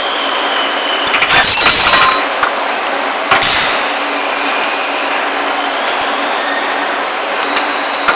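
Turret lathe running with a steady high whine, broken by two louder metallic bursts, one lasting about a second and a shorter one a moment later, with scattered small clicks; the whine grows stronger near the end.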